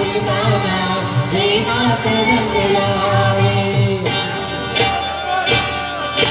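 A song with singing over a steady, fast beat, played loud.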